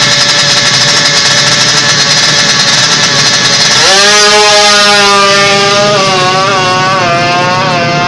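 Drag-racing motorcycle engines running loudly with a rasping buzz. About four seconds in, one bike launches hard and accelerates; its engine note climbs and drops back at each gear change.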